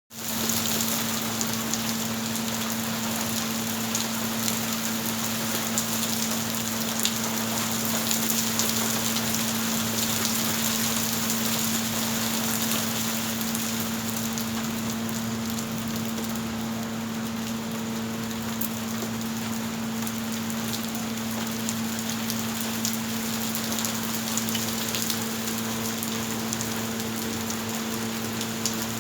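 Steady rain falling, with many individual drops ticking sharply on a surface. A steady low hum runs underneath.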